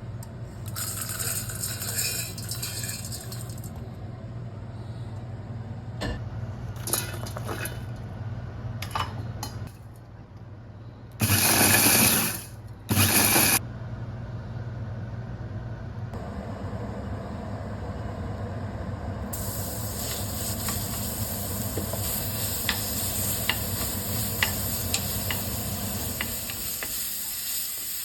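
Food stir-frying in a pan: sizzling, with the ticks and scrapes of a spatula being stirred through it over a steady low hum. Two loud rushes of noise, each about a second long, come near the middle, and the sizzle grows steadier and brighter in the second half.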